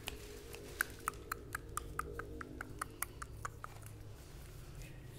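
Shih Tzu puppies playing: a quick run of short, sharp ticks and squeaks, about four a second, that stops near the end.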